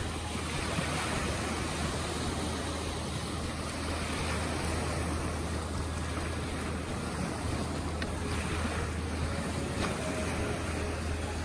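Small boat-wake waves washing up a sandy shore and breaking against a beached inflatable dinghy and its outboard motor, with splashing surf over a steady low rumble.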